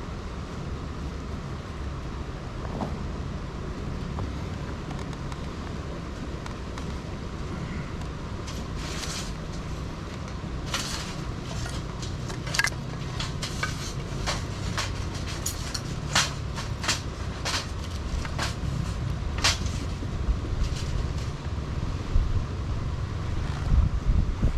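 Steady low rushing noise. From about a third of the way in, it is overlaid with a run of sharp clicks and snaps, irregular and sometimes in quick succession.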